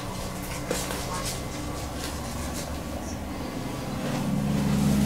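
A low, steady mechanical hum that grows louder about four seconds in, with a few faint clicks and knocks over it.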